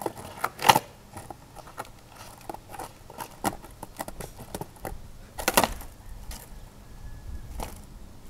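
Skateboard deck and wheels clacking and knocking on asphalt during freestyle tricks: a series of sharp knocks, the loudest about a second in and again just past halfway, with lighter taps and scuffs between.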